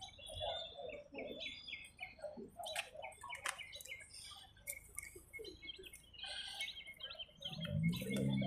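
Small birds chirping in short, scattered calls over quiet outdoor ambience. Near the end a low, indistinct voice comes in.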